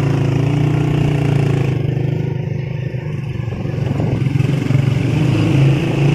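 Motorcycle engine running while riding, together with road and wind noise. It eases off around two seconds in and then picks up speed again near the end.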